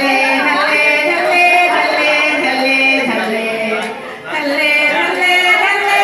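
A group of mostly women's voices singing a song together in unison, unaccompanied by instruments, with a brief break between phrases about four seconds in.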